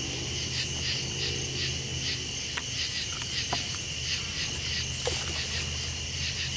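Night chorus of crickets and other insects: a steady high trill with pulsing calls about three times a second, over a low steady hum, with a few faint clicks.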